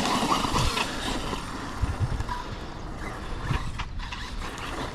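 Arrma Fireteam 6S BLX brushless RC car being driven, a steady rush of running noise with a few short knocks.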